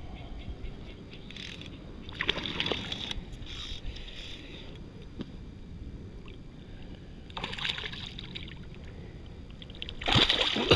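A hooked black bass thrashing and splashing at the water's surface beside a float tube, loudest near the end, over a steady low rumble of water and wind. Shorter bursts of sloshing come a couple of seconds in and again about three-quarters of the way through.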